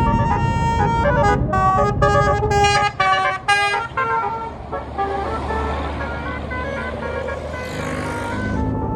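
Tour bus's basuri musical horn playing a tune of stepped notes for about four seconds, then the bus's engine running and its tyres passing.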